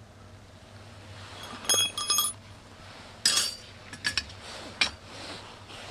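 Metal clinking twice with a ringing tone about two seconds in, then a quick hissing scrape of a striker down a ferrocerium fire steel a second later, throwing sparks that light dry feather-stick shavings, followed by a few small clicks.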